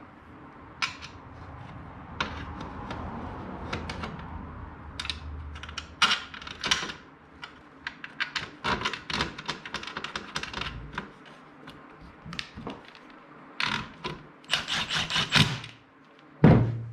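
Clicks, rattles and knocks of car seat parts being handled and fitted together as a new seat base goes onto the seat frame, with a heavy thud near the end.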